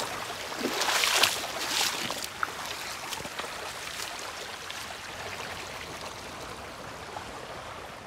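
Shallow forest stream running and trickling over rocks, with a few louder splashes in the first two seconds.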